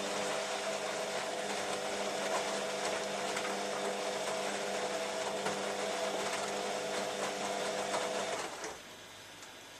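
Beko WM5101W washing machine running with a steady motor whine, which cuts off about eight and a half seconds in and is followed by a single click.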